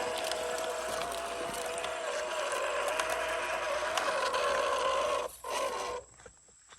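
The small electric motor and gearbox of an MN128 1/12-scale RC Jeep crawler whining under load, the pitch wavering, with small clicks and crunches from the tyres on the ground. It cuts out briefly about five seconds in and stops about a second later.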